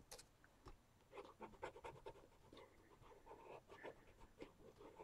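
Faint, irregular scratchy strokes of a white block eraser rubbing on sketchbook paper, thickening from about a second in.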